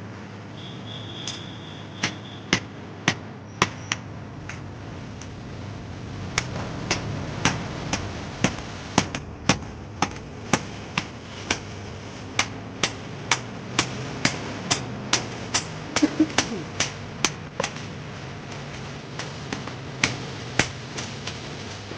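Blacksmith's hammer striking iron on an anvil in repeated blows, about two a second, with short pauses between runs of strokes.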